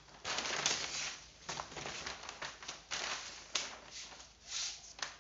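Sheets of paper rustling and crinkling as they are handled by hand, in a run of irregular bursts with sharp crackles.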